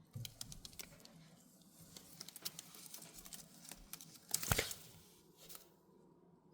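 Pet parrot's beak and claws clicking and scratching at its toys, a scatter of small ticks and rustles, with one louder scrape about four and a half seconds in.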